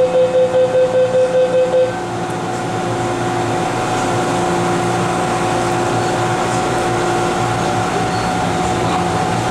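MTR M-Train door-closing warning beeping rapidly, about four beeps a second, and stopping about two seconds in. It is followed by the train's steady hum with a few held tones.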